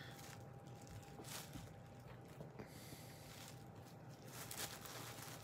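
Quiet room tone: a faint, steady, thin hum, with a few soft brief rustles spread through it.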